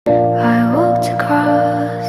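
Background music: sustained, steady chords with a melody note that glides upward partway through.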